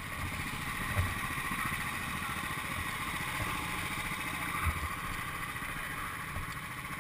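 Rental go-kart engines running steadily in the pit lane, heard from an onboard camera, with two dull thumps about one second and nearly five seconds in.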